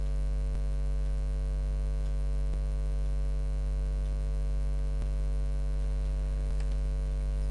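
Steady electrical mains hum, a low buzz with many overtones, with a few faint clicks.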